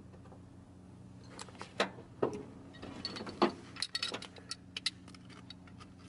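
Seatbelt hardware and trim pieces being worked loose and handled: scattered knocks, then a quick run of small metallic clicks and rattles about four seconds in. A faint steady low hum sits underneath.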